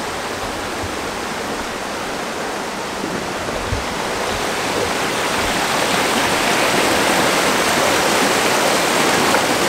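A small waterfall: water rushing steadily over rock slabs and down a rocky channel into a pool. It grows louder from about halfway through.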